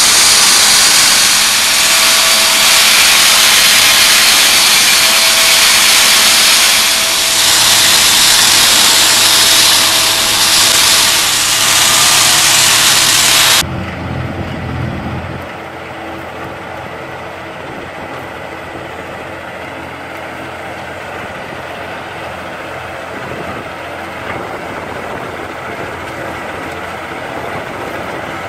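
Excavator-mounted rock wheel saw cutting a tunnel floor: a loud, steady grinding hiss with a faint steady whine. About halfway through it stops abruptly and gives way to a quieter tractor engine running steadily.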